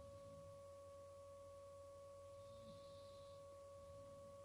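Near silence: room tone with a faint, steady high hum.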